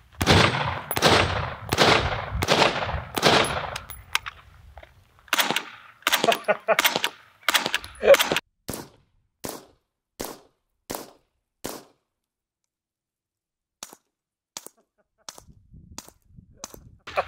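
Suppressed 5.56 rifle firing about five loud shots in quick succession, each with a long echoing tail and a notably loud first-round pop. These are followed by an MP5SD integrally suppressed submachine gun firing about five much quieter, short shots, roughly one every 0.7 seconds, with a few faint clicks near the end.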